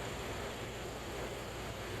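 Steady low background hiss with no distinct work sounds: room tone.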